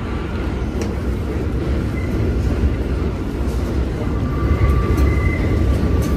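R160A subway train standing at an elevated station platform: a steady low rumble from the idling train, with a faint steady whine that drops out and comes back about four seconds in, and a few sharp clicks.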